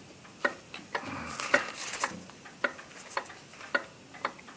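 Mechanical pendulum clock ticking steadily, about two ticks a second, with a brief rustle of handling noise between about one and two seconds in.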